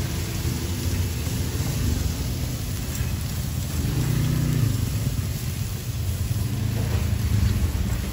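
A steady low rumble dominates, over a faint even hiss of marinated beef skewers sizzling on a charcoal grill.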